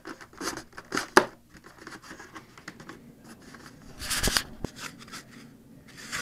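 White foam FPV pod being gripped and worked against the foam part it is magnet-mounted to: scratchy foam-on-foam rubbing and creaking. Several sharp clicks come in the first second, and a louder scraping rush comes about four seconds in.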